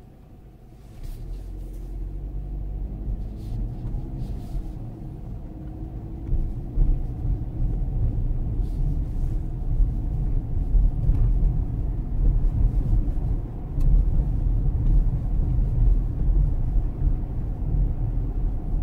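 Inside a car's cabin, engine and road noise build as the car picks up speed, with a rising engine note over the first few seconds, then a steady low rumble of driving.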